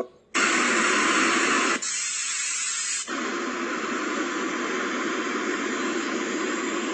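YACHANCE white noise machine playing its noise presets through its small speaker: a steady hiss that starts just after a brief gap and switches abruptly to a differently shaped, somewhat softer noise twice, about two and three seconds in.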